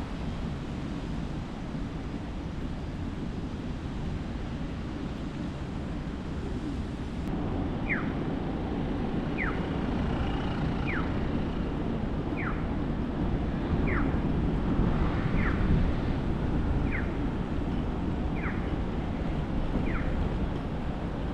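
Steady low rumble of city traffic. From about a third of the way in, a short falling chirp repeats evenly about every second and a half.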